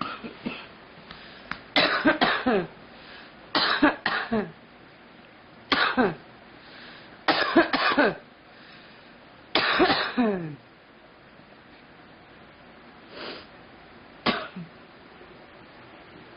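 A girl coughing in repeated fits: about five bouts of two or three harsh, voiced coughs each, close together over the first ten seconds or so. Two fainter single coughs follow near the end.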